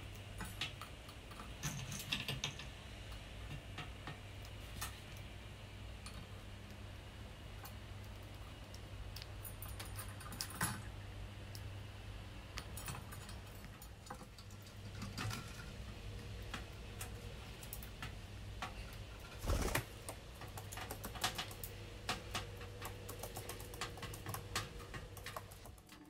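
Budgerigars busy on a wooden play stand: many irregular small clicks and taps of beaks and claws on seed, wooden perches and a metal tray, over a steady low hum.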